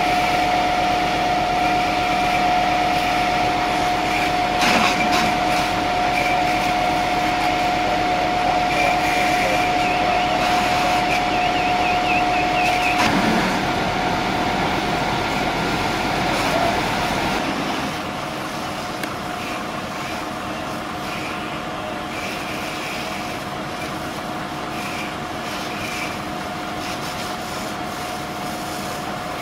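Fire engine running at the fireground, its engine and pump making a steady hum with a constant whine over a noisy wash. About two-thirds of the way through, the sound gets quieter and loses its low rumble while the whine carries on.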